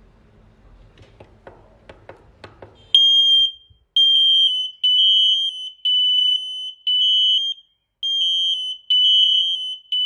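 A few faint clicks, then about three seconds in, interconnected photoelectric smoke alarms go into test alarm: a loud, piercing high beep repeating about once a second, set off by pressing the test button.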